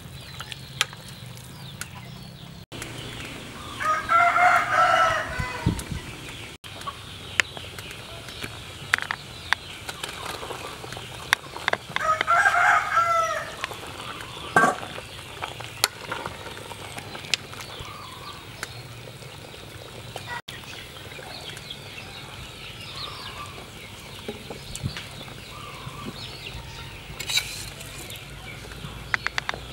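A rooster crowing twice, about four seconds in and again about twelve seconds in. Between the crows there is light clicking and the stirring of a pot of soup boiling over a wood fire.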